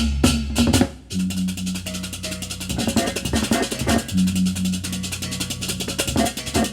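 Baleganjur music, the Balinese processional gamelan style: fast, dense percussion over low repeating notes, with a brief break about a second in.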